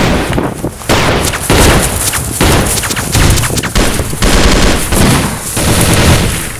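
Heavy gunfire: rapid, overlapping shots from several automatic rifles in a sustained firefight, with a brief lull a little under a second in.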